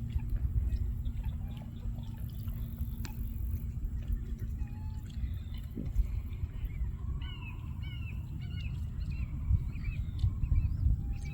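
Birds calling in the open: scattered short calls, then a run of quick notes with a downward hook about seven to nine seconds in, over a steady low rumble.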